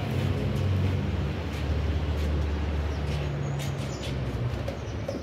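A steady low mechanical hum with a few light clicks over it.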